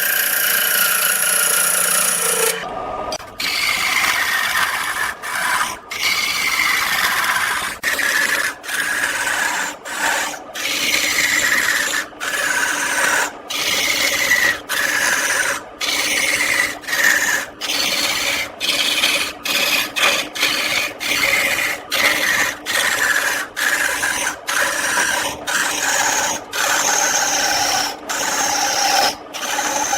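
Tool scraping wood on a turning lathe in quick repeated strokes, each under a second with a short break between, many with a falling pitch; a steady running sound before that, for about the first three seconds.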